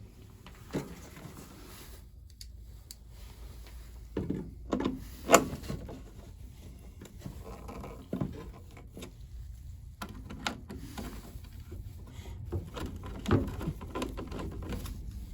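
Handling noises: scattered knocks, clicks and rustling as things are moved about, the loudest a sharp click about five seconds in.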